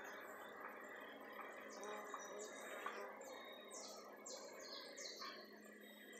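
Faint bird chirping: starting about two seconds in, a run of roughly six short, falling chirps over a low steady background hiss. The recording plays back at 1.5 times speed.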